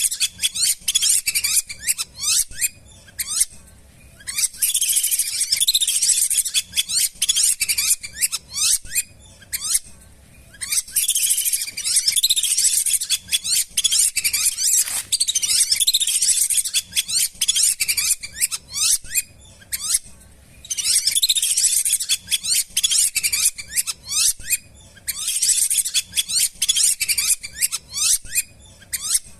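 Lesser whistling ducks calling: many overlapping high, sliding whistles in repeated bouts of a few seconds each, with short quieter gaps between the bouts.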